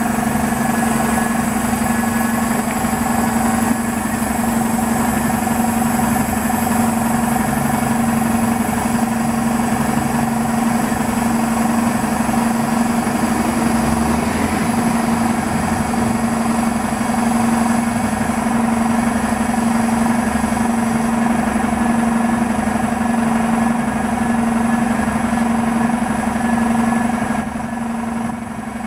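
City transit bus idling at the curb: a steady engine drone with one strong constant hum, easing off slightly in level near the end.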